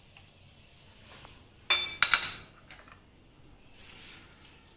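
A sharp clatter of kitchenware about two seconds in, with a short ringing clink, as a plate or utensil knocks against the frying pan or the worktop. After it comes a faint scraping as a spatula stirs whole spices in the pan.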